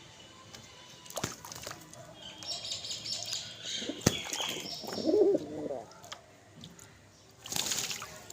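Birds bathing in water: wings flapping and splashing in flurries, with high chirps, sharp clicks, and a short low wavering call about five seconds in that is the loudest sound.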